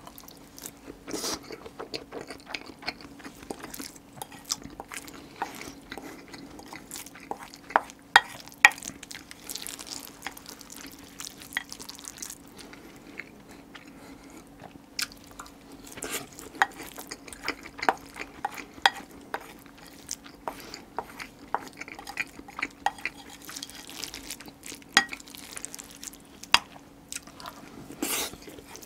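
Close-miked eating: wet chewing and mouth smacks of rice mixed with spicy marinated crab, with chopsticks and a spoon clicking and scraping against a ceramic rice bowl. A steady low hum runs underneath.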